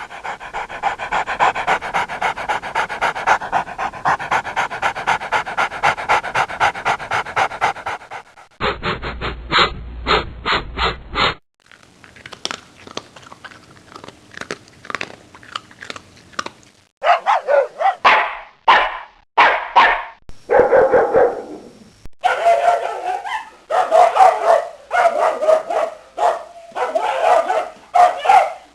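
A string of dog recordings: a dog panting fast and rhythmically, several short pulses a second, then a quieter stretch and a run of separate short barks and yelps in the second half.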